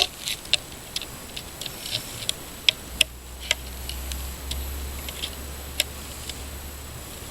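Irregular sharp metallic clicks and taps, about a dozen, from a plier-style nail puller gripping and levering nails out of pallet boards. A low rumble comes in about three seconds in.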